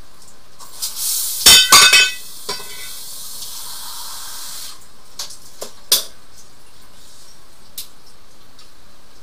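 Sharp clinks of a hard object knocking against the porcelain of a removed toilet bowl, three loud ringing ones close together about a second and a half in, over a high hiss that runs for a few seconds, followed by several lighter clicks.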